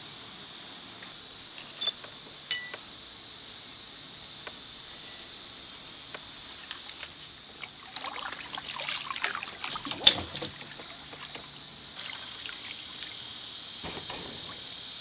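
Steady high-pitched chorus of insects, with a kayak paddle dipping, splashing and dripping in the water for a couple of seconds past the middle. There are a few sharp clicks and knocks, the loudest a single crack among the splashing.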